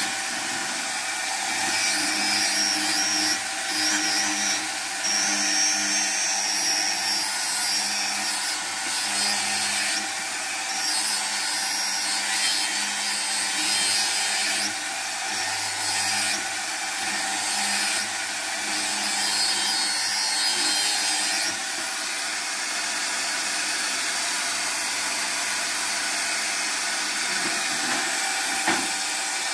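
Electric angle grinder running steadily while its disc grinds and cuts tile. A harsh grinding rasp comes and goes over the first twenty seconds or so as the disc bites, then the sound settles into a steadier run.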